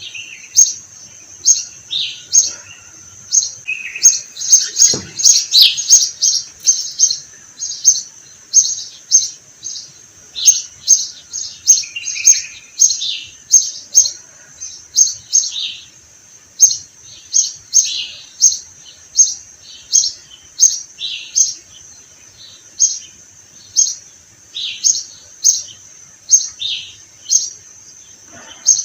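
Sparrows chirping: a steady run of short, sharp chirps, about one or two a second, many of them falling in pitch.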